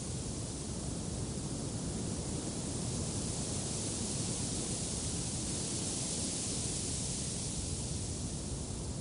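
Steady wind noise, a low rumble with a high hiss over it, swelling slightly through the middle.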